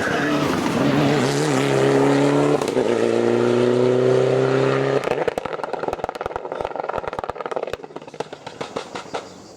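Mitsubishi Lancer Evolution IX's turbocharged four-cylinder engine accelerating hard, its pitch climbing steadily, with a gear change a little over two seconds in. About halfway through the throttle closes and the exhaust crackles with rapid pops on the overrun, growing fainter.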